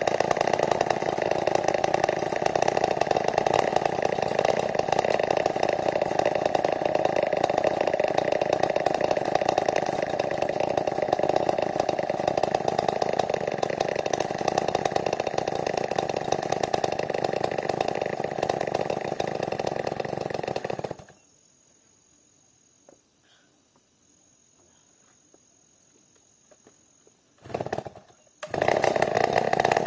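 New West 070 two-stroke chainsaw running steadily at high revs for about twenty seconds, then breaking off abruptly into near silence. A short burst of it comes back near the end, and it starts running again just before the end.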